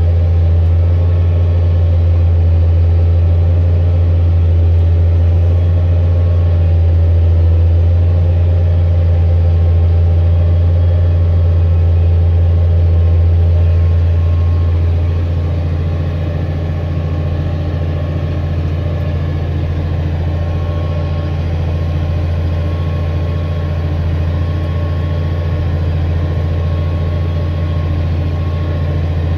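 Tractor engine running steadily while pulling a subsoiler through the field, a deep even drone. About halfway through it gets a little quieter and its tone shifts slightly.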